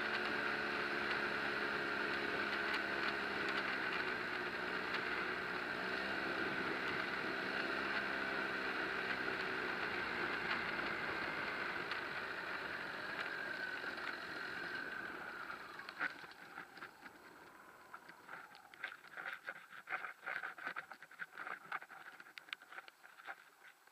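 Paramotor trike engine running throttled back during the landing approach, a steady hum with wind rushing past the wing-mounted microphone. About two-thirds of the way through, the engine fades out, and what follows is quieter, with scattered clicks and flutters as the trike touches down and the wing settles.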